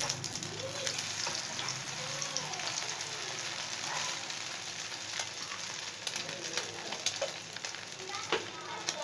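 An egg frying in ghee in a pan, being turned over with tongs, sizzling steadily with many small crackling pops.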